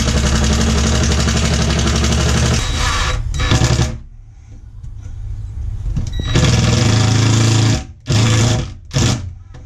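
Ryobi cordless drill running as it drives screws through a metal drawer slide into plywood: one long run that stops about four seconds in, then after a pause a run of about a second and a half and two short bursts near the end.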